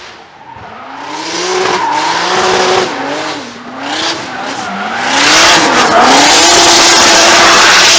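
Drift car at full throttle through a corner, the engine pitch rising and falling as the revs swing, over loud tyre squeal that builds to its loudest for the last three seconds.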